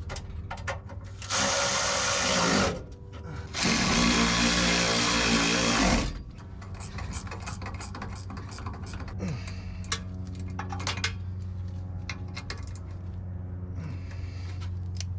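A power tool runs twice, briefly then for about two seconds, while exhaust fasteners are being tightened. A steady low hum and light metal clicks follow.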